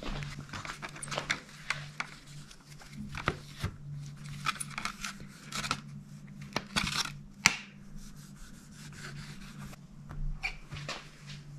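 Hands working a vinyl decal and the plastic body panel of a pit bike: irregular rubbing, rustling and scraping, with sharp little clicks, over a steady low hum.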